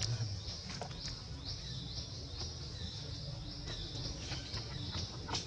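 Insects chirping in a steady high-pitched rhythm, about two pulses a second, over a low background rumble, with a couple of faint ticks.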